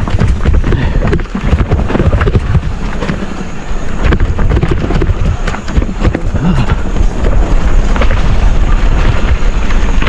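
Wind buffeting the microphone as a mountain bike descends a rough downhill trail, with the bike rattling and clattering over the ground. It is loud and continuous, with many sharp knocks.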